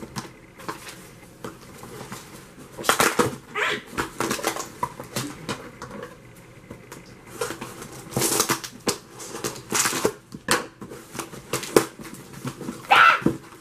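Packing tape being peeled and ripped off a cardboard shipping box, in several loud rips, with cardboard flaps scraping and rustling as the box is pulled open.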